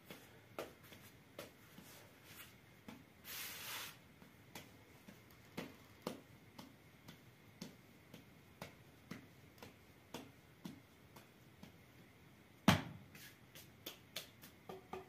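Hands kneading bread dough on a plastic cloth: soft, irregular pats and slaps, with a brief hiss about three and a half seconds in and one sharper, louder thump a couple of seconds before the end.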